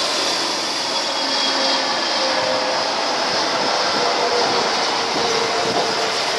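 Airbus A320neo airliner's twin turbofan engines at approach power: a steady rushing noise with faint whining tones as the jet passes low over the runway, about to touch down.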